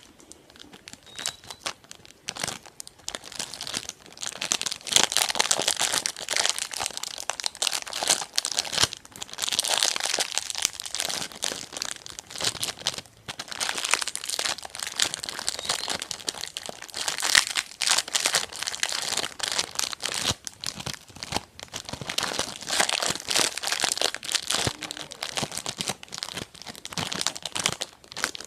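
ASMR crinkling and crumpling sounds: a dense run of crackles that goes on with only brief pauses.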